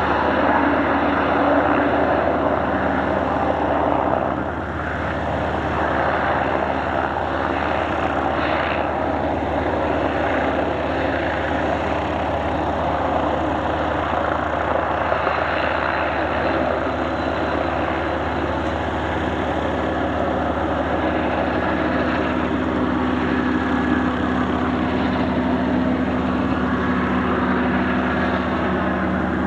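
Propeller aircraft engine running steadily, its note rising slightly over the last several seconds.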